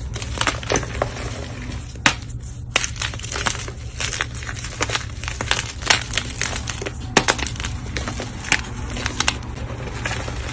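Blocks of dyed gym chalk crunching and crumbling as they are crushed, a string of irregular sharp crunches over a steady low hum.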